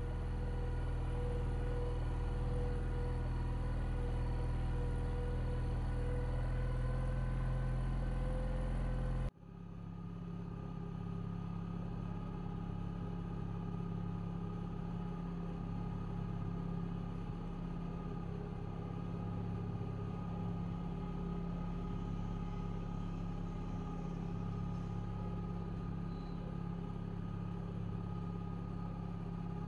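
Boat's outboard motor running steadily as it pushes the boat along. About nine seconds in, the sound switches abruptly to a deeper, steady engine note.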